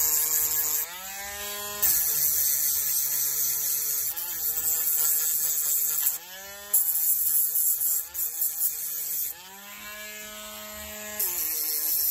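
Dremel Micro rotary tool with a 60-grit barrel sanding drum grinding down the wire loop of a steel rake sculpting tool. The motor's whine sags in pitch and the gritty grinding gets louder each time the wire is pressed to the drum, then recovers as it is eased off, several times over.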